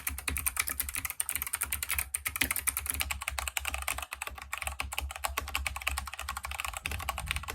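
Fast, continuous typing on a mechanical keyboard: a dense run of key clicks and clacks, part of a comparison of brown-switch and Kailh optical switch feel.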